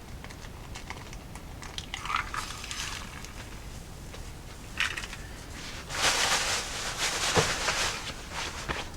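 An egg being cracked into the hot Hamilton Beach egg cooker: a few light taps, then a crackling hiss for a couple of seconds about six seconds in as the egg meets the hot surface.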